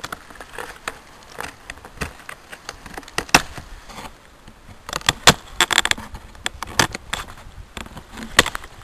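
Irregular sharp clicks and knocks over a faint rustle, bunched together about five to six seconds in.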